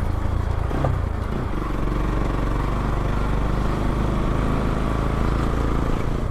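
Bajaj Pulsar NS200's single-cylinder engine running steadily on the move, heard through an aftermarket Akrapovic exhaust fitted with a dB killer.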